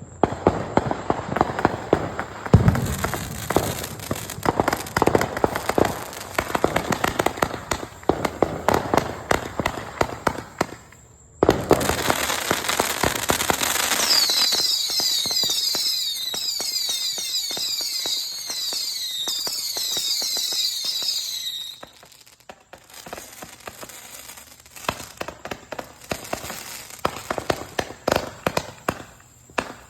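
500-gram zipper cake firework firing in quick succession: a fast, steady run of shots, a brief pause, then a louder, denser stretch full of short high-pitched whistling glides. After that it thins out into scattered pops and crackle.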